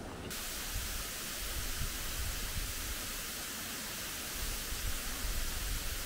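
Second waterfall, a thin cascade falling down a rock face: a steady, even hiss of falling water and spray that sets in a moment after the start.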